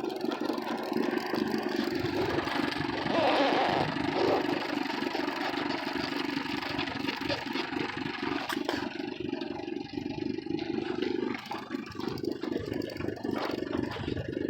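Boat's outboard motor idling steadily, a low even hum.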